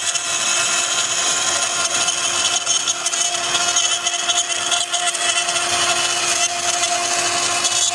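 A CNC wood router's 3.5 kW spindle running at high speed, giving a steady whine, while its small bit carves into a wooden board with continuous cutting noise.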